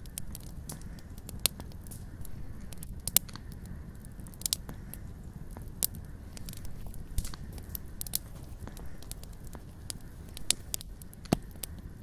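Wood fire burning in a campfire ring, crackling with irregular sharp pops over a low steady rumble, a few pops much louder than the rest.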